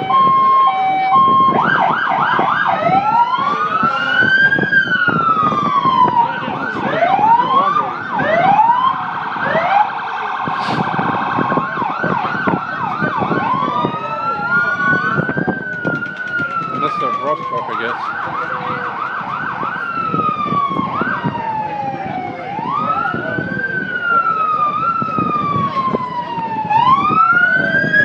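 Sirens on several fire and rescue vehicles sounding at once, overlapping slow rising-and-falling wails with stretches of fast yelp.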